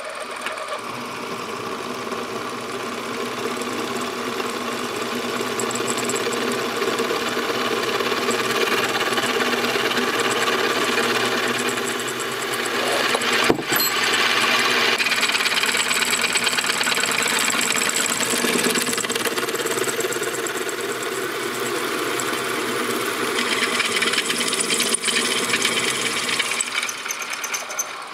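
Drilling machine running with a twist drill cutting into a steel hexagon bar, a steady mechanical whir with the cutting noise of the bit. A single sharp click about halfway through, and the drilling stops at the very end.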